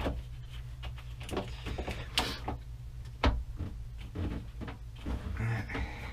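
Light, irregular clicks and knocks of hands and a small tool working at the terminals of a lead-acid battery bank, over a steady low hum.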